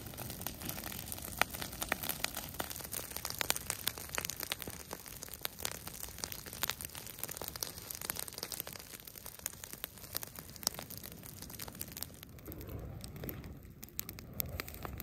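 Dry leaf litter and grass crackling with many irregular sharp snaps as it burns, mixed with the crunch of steps through the dry leaves. The snapping eases off near the end, where a low rushing sound comes in.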